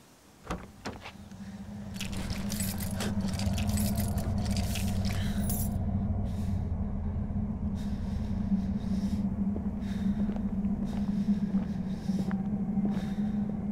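A car door knocks shut, then keys and small parts rattle and click for a few seconds inside the car, over a steady low hum that fades in during the first two seconds and holds.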